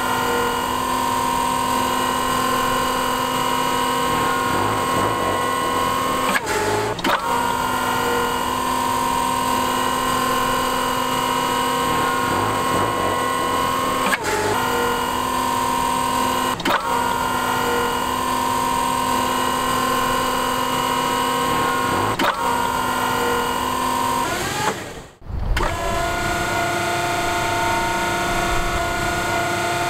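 A 36-volt electric forklift's hydraulic pump motor runs with a steady whine while the carton clamp arms are worked open. It cuts out briefly every few seconds as a lever is let go. Near the end it stops, then starts again at a different pitch.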